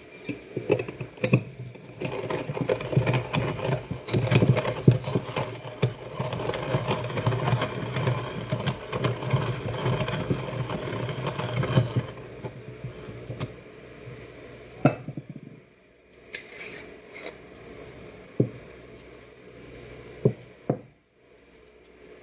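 Timemore C2 hand coffee grinder being cranked, its stainless steel conical burrs crunching coffee beans at a fine, near-espresso setting for about eleven seconds. Then a few sharp clicks and knocks as the grinder is handled and the grounds are tapped out.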